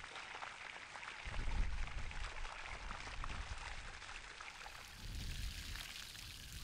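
Water gushing from a garden hose into a metal basin of sprats, rinsing the fish and splashing over the rim with a steady rush.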